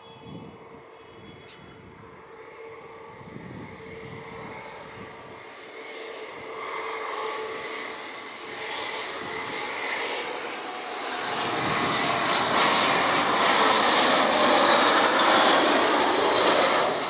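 Sukhoi Su-30MK2V fighter's twin AL-31F turbofan engines on landing approach, growing steadily louder as the jet comes in low. A high whine rises slightly and then drops in pitch as it passes close overhead near the end.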